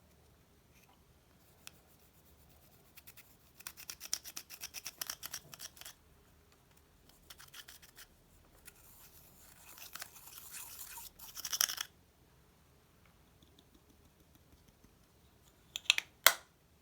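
Slime being worked and mixed by hand: bursts of rapid sticky clicks and crackles, then a longer scratchy, hissing stretch, and a couple of sharp snaps near the end.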